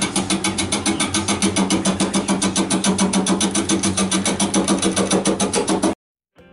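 Turning tool cutting a spinning Japanese chestnut blank on a Laguna wood lathe: a rapid, even, rhythmic knocking about eight times a second over the lathe's steady hum. It cuts off suddenly about six seconds in.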